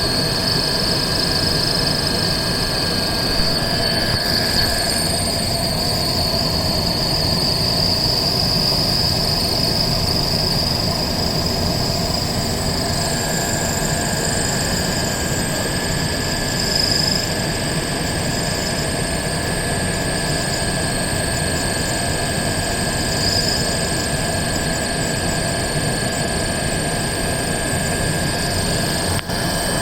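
Air conditioner motor running with a steady high-pitched squeal over a constant hum, the faulty noise it is making.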